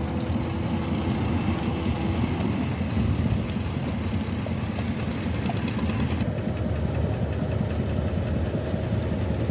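Purse-seine fishing boat's diesel engine running steadily with a fast, low knocking throb. The higher hiss above it drops away about six seconds in.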